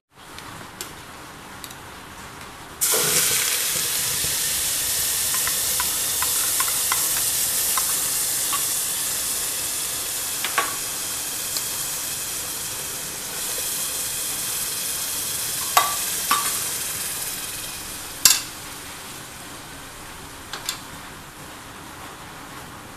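Hot oil in an aluminium pressure cooker sizzling as ingredients go in. It starts suddenly about three seconds in, swells again midway as a paste is poured in, and dies away over the last few seconds, with a few sharp clinks along the way.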